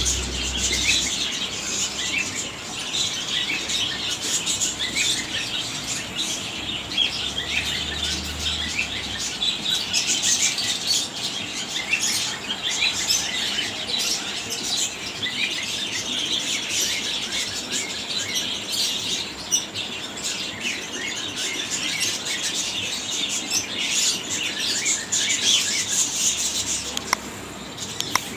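A dense, continuous chatter of many small caged birds chirping and tweeting over one another, with no pause.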